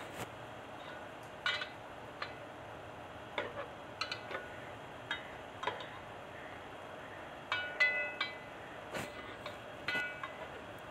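A metal spoon stirring chicken in yogurt in an aluminium pot, clinking and scraping against the pot's sides at irregular moments, with a cluster of louder, ringing clinks about three quarters of the way through. A faint steady hiss runs underneath.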